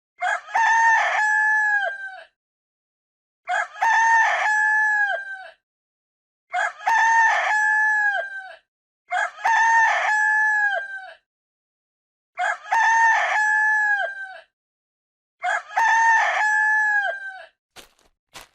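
Rooster crowing: six cock-a-doodle-doo calls of about two seconds each, separated by a second or so of silence.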